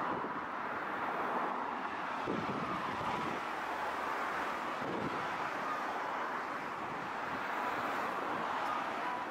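Steady city road traffic noise, with a streetcar approaching along the tracks.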